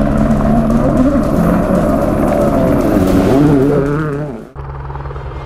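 Rally car engine revving up and down under music, cut off abruptly about four and a half seconds in, after which a steadier pulsing sound carries on.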